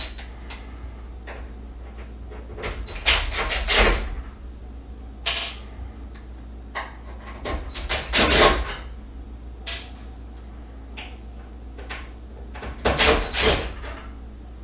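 DeWalt 20V cordless impact driver running in several short bursts a few seconds apart, backing screws out of a stove's sheet-metal back panel, with light clicks and taps between the bursts.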